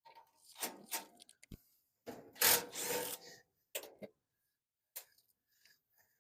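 Scraping and rubbing sounds with a few short knocks, from hand work on a furnace's sheet-metal heat exchanger and cabinet while the last screw is taken out and the heat exchanger is worked loose. The longest, loudest scrape comes about two seconds in.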